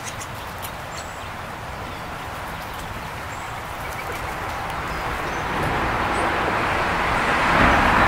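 Vehicle noise swelling steadily louder, with a few faint high bird chirps.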